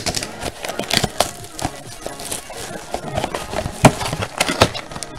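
Cardboard trading-card box and the foil-wrapped pack inside being handled: rustling with a string of sharp taps and clicks.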